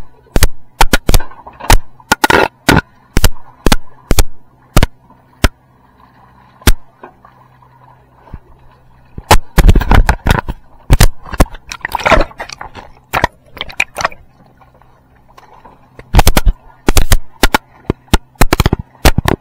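Irregular clusters of sharp, loud knocks and clicks, over a faint steady low hum.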